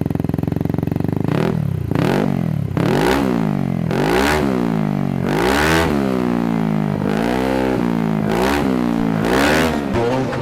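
Motorcycle engine breathing through an aftermarket racing exhaust, idling and then blipped about seven times, each rev rising quickly and falling back toward idle.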